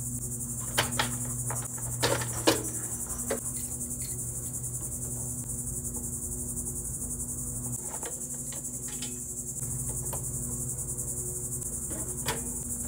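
Several knocks and clunks as a benchtop thickness planer is set down and handled on a folding workbench, most in the first few seconds and one more near the end. Under them runs a steady high buzz of insects.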